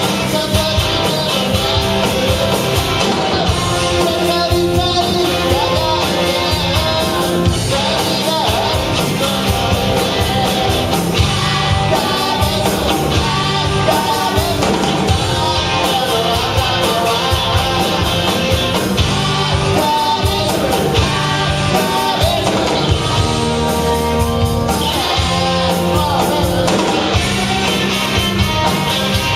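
A rock band playing a song, with singing over guitar, bass and a steady drum beat.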